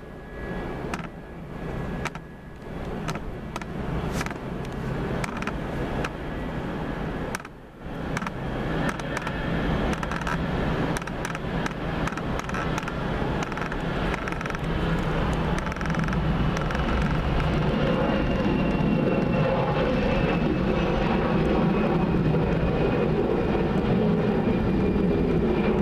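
Airbus A320-214's CFM56-5B jet engines at takeoff thrust: a steady rumble and roar with a faint whine above it, growing louder about eight to ten seconds in and then holding as the jet lifts off and climbs out.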